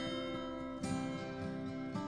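Soft background music: acoustic guitar chords, with a new chord struck about a second in and another near the end.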